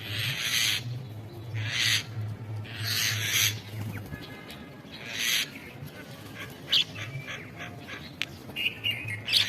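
A bird giving harsh, hissing screeches, four of them in the first five seconds or so, followed by a few short, sharp notes near the end.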